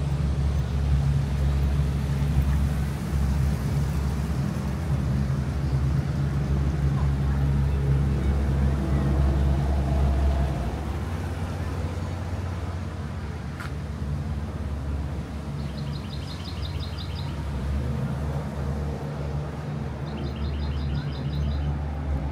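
Engine of a motorized river raft running with a steady low hum; it eases off about halfway through. A short, high, rapid trill sounds twice in the second half.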